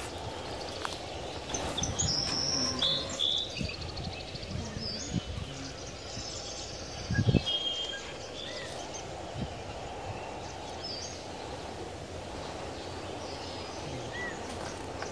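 Small birds chirping now and then over a steady outdoor background hiss, with a brief low thump and rustle about seven seconds in.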